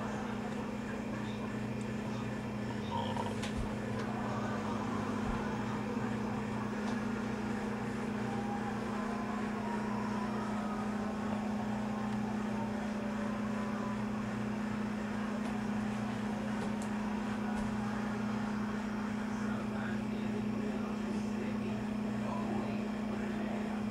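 Steady low mechanical hum, unchanging throughout.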